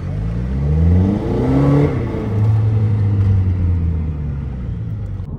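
Car engine accelerating hard, its pitch climbing for about two seconds, then dropping at an upshift and pulling on steadily before easing off, heard from inside the car.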